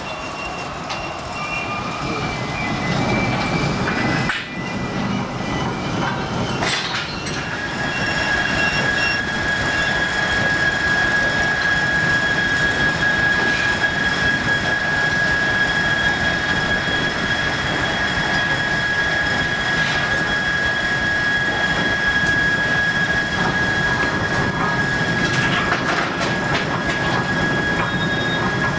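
Steam-powered sawmill machinery, driven by a single steam engine below the floor, running with a steady mechanical noise. A high, steady whine sets in about seven seconds in and holds.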